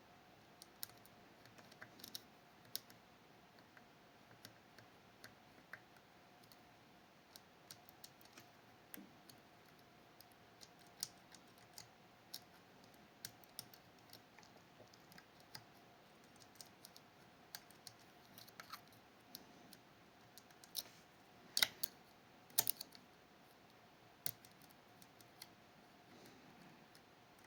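Faint, irregular small clicks and ticks of a lock pick working the levers of a Fichet 484 lever sidebar lock, with a few louder clicks about three quarters of the way through.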